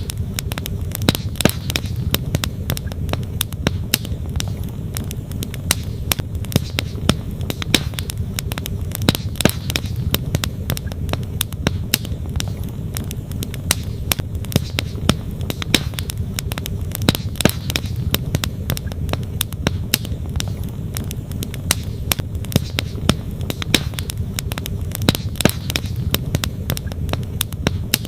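Wood campfire crackling with frequent sharp pops, over the steady low rush of a flowing stream.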